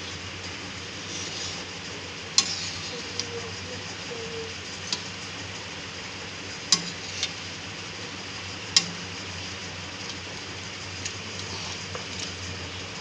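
Metal spatula stirring egg masala gravy in a steel kadai, knocking sharply against the pan a few times (loudest about two and a half, seven and nine seconds in), over the steady hiss of the simmering gravy.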